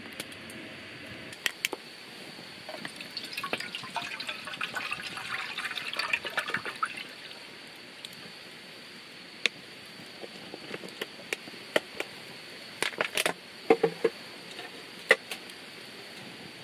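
Water poured from a plastic bottle into an aluminium mess tin, splashing and trickling for a few seconds, followed by scattered light clicks and knocks.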